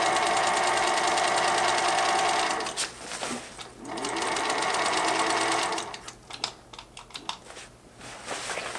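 Black Singer sewing machine running as it stitches a fabric flap onto a zipper, in two steady runs of about two and a half and two seconds with a one-second stop between. After the second run it stops, leaving scattered light clicks.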